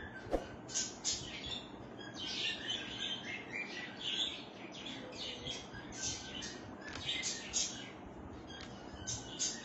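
Small birds chirping and twittering in quick, repeated short calls, with one sharp click just after the start.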